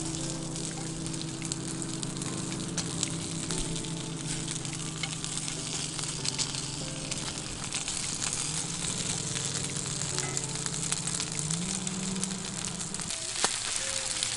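Raw bacon strips sizzling and crackling in a hot nonstick pan on a portable camp burner as they start to fry, with a steady hiss and many small pops.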